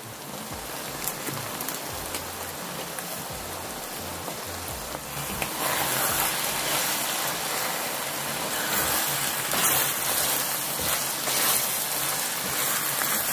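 Ground meat sizzling as it fries in a pan while a wooden spatula stirs it. The sizzle grows louder about five seconds in.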